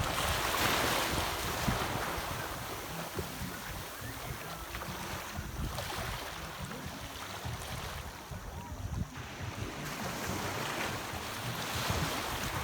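Ocean surf washing on a beach, with wind gusting on the microphone; the wash swells a little near the start and again near the end.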